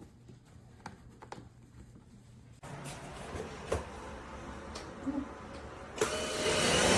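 Cordless stick vacuum cleaner (drepre K7 Pro) after a few light handling clicks: it switches on suddenly partway in and runs with a steady hum, then steps up near the end and rises to a louder, higher-suction run.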